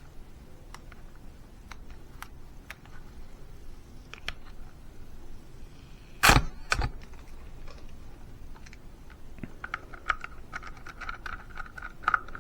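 Small plastic clicks and handling as a screw is taken out of a Dyson Airstrait's plastic housing. There is a sharp double click about halfway through, and a squeaky creak with fast ticking over the last couple of seconds.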